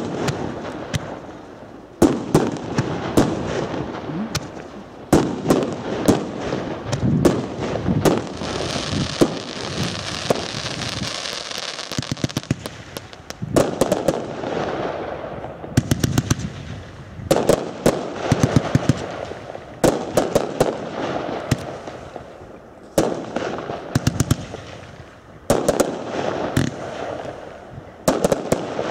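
Aerial fireworks bursting in quick volleys: clusters of sharp bangs and pops in quick succession, with a stretch of hiss about a third of the way in.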